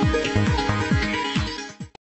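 Electronic outro music with a kick-drum beat of about two beats a second, fading out and cutting off near the end.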